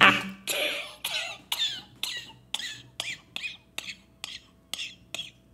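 A person laughing hard in a rapid run of short, high-pitched bursts, about three a second, slowing gradually.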